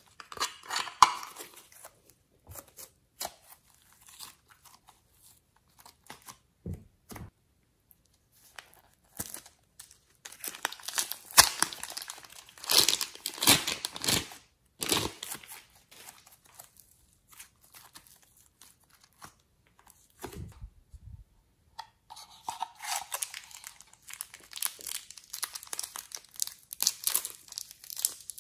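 Soft modelling clay being pulled, torn and squeezed by hand, with some contact against a clear plastic container: irregular sticky crackling and tearing sounds with quiet gaps, loudest in a stretch a little over a third of the way in and again through the last few seconds.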